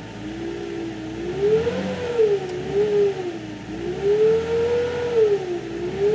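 A high whine from the 2005 Nissan Maxima's engine bay, its pitch rising and falling repeatedly as the engine is revved. The owner takes the whine for a failing alternator.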